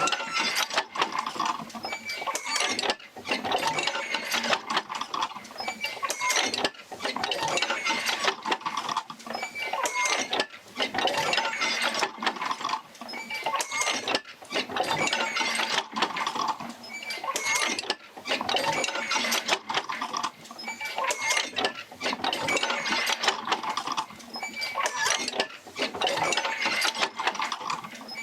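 Oil field wheel rocking back and forth as it drives jerker lines to the pumps, its joints and linkages creaking, squeaking and knocking in a slow cycle that repeats about every three and a half to four seconds.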